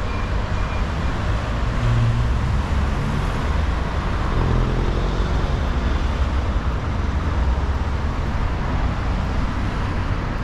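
Steady city road traffic: car and vehicle engines running past with tyre noise.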